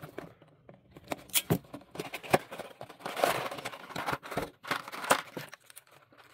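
Scissors snipping the seal of a cardboard figure box in a few sharp clicks. Then a clear plastic blister tray is slid out of the box and handled, rustling and clicking.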